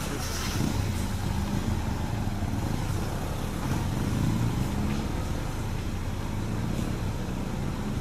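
A motor vehicle's engine running steadily at low revs, a low, uneven rumble.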